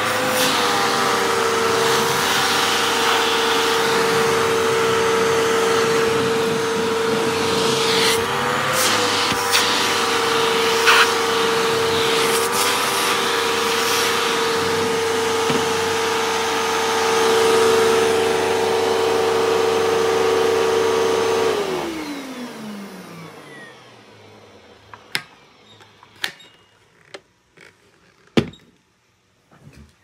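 Hoover vacuum cleaner running with a steady high motor whine as its hose sucks sand and bits of cut-up pencil-top eraser off a tabletop, with a few sharp ticks of debris going up the hose. About 21 seconds in it is switched off and the whine falls away as the motor spins down, followed by a few light knocks.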